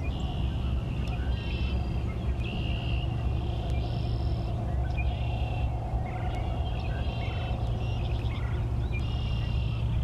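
Marsh wildlife calling: short, high trilled calls of about half a second each, coming roughly once a second from several overlapping callers, over a steady low rumble.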